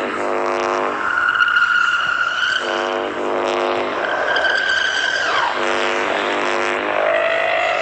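Synthesized UFO sound effect: a buzzing electronic drone that comes in about every two and a half seconds, alternating with high whistling tones and sweeping glides in pitch.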